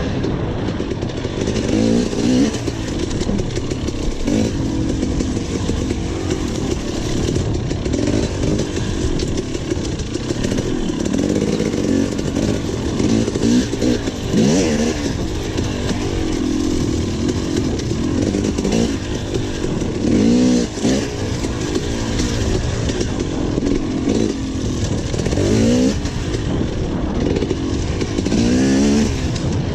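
Enduro dirt bike engine, heard onboard, working hard through a race special test: the revs climb and drop over and over, with sharp surges every few seconds as the throttle is worked and gears change.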